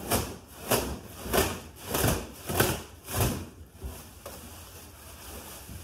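Black plastic trash bag rustling as it is pulled open by hand, in about six pulls roughly half a second apart, going quieter about three and a half seconds in.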